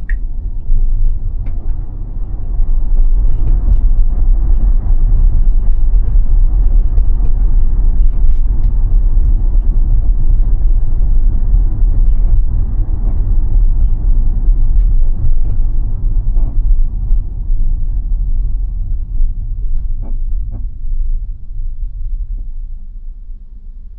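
Low, steady rumble of road and wind noise inside a moving Tesla Model Y, building up about two seconds in and easing off near the end.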